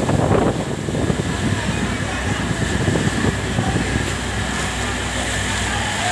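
Steady mechanical drone mixed with storm wind noise, with indistinct voices in the first second and again around the middle.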